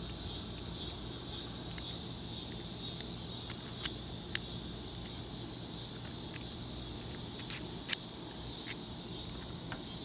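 High-pitched insect chorus, pulsing two or three times a second. A few small sharp clicks come from the metal camlock and key being handled, the loudest about eight seconds in.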